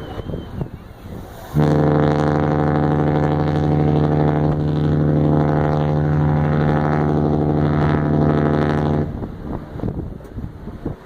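Cruise ship's horn sounding one long, steady blast of about seven and a half seconds: a deep, low horn note that starts just under two seconds in and cuts off near the end. It is a departure signal as the ship leaves port.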